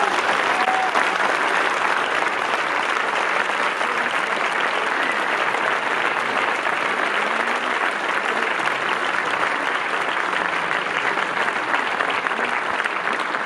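Large audience applauding steadily, a dense crackle of many hands clapping, with a voice or two calling out in the first second.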